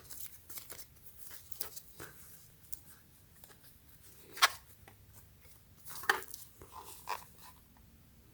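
Handling of a plastic power bank case and its packaging: scattered light rustles and clicks, with two sharper clicks about four and a half and six seconds in.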